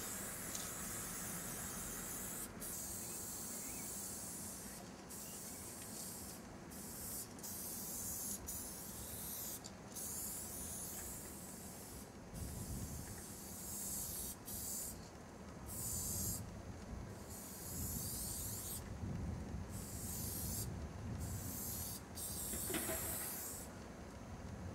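Aerosol spray-paint can hissing as lines are sprayed onto a wall, in bursts of a second or two that stop and start many times, the breaks coming more often in the second half.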